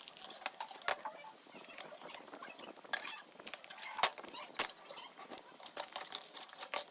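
Irregular small clicks, taps and crackles of hands working on a laptop LCD screen, taking it apart layer by layer.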